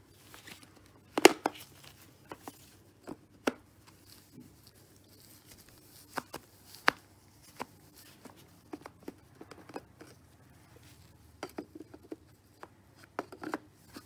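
Scattered plastic clicks and knocks as the dirt cup and filter of a Tzumi IonVac cordless handheld vacuum are worked back into place by gloved hands, the loudest knock about a second in.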